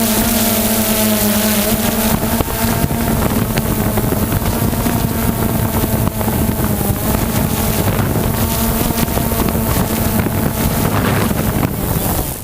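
A propeller aircraft's piston engine running with a steady, loud drone, with wind buffeting the microphone.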